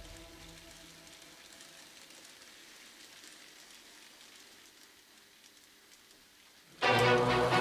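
Background music dying away into a faint steady hiss for several seconds, then music starting again suddenly and loudly near the end.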